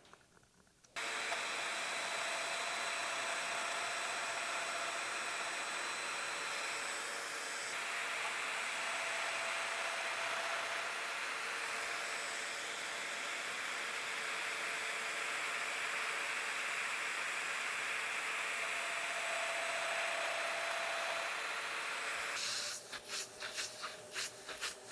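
A woodworking power tool running steadily with a hiss and a faint whine, switched on about a second in and shutting down near the end with a few uneven pulses.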